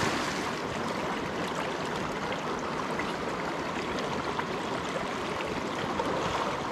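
A small mountain freestone creek running steadily over rocks in a shallow riffle close by.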